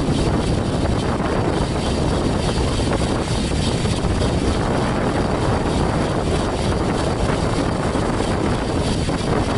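Steady rush of wind buffeting the microphone of a camera on a road bike moving at speed, with road noise underneath.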